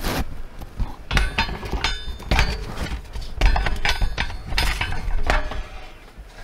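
Knocks and light metallic clinks from tools and parts being handled and set down, with some strikes ringing briefly, over a low handling rumble. The knocks come irregularly, about every half second to second.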